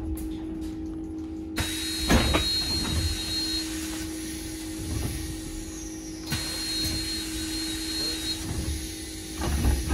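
Cabin noise inside a Heuliez GX337 Linium electric bus: a steady hum with an even hiss that comes in abruptly about a second and a half in. A faint high whine sounds twice, with a few low knocks.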